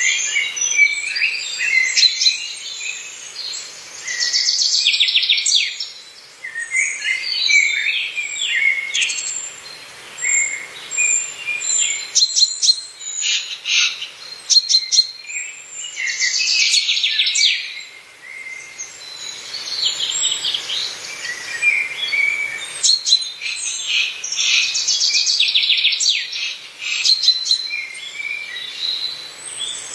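Several songbirds singing and calling in a continuous chorus of chirps, whistles and fast trills, with short lulls between phrases.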